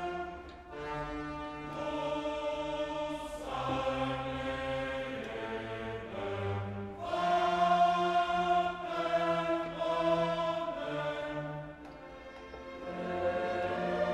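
Background music: slow, held choral and orchestral chords that change every second or two.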